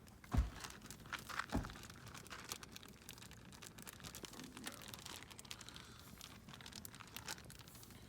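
Two dull knocks in the first second and a half, then scattered light crackling and crinkling as kebab skewers are handled and set over a campfire.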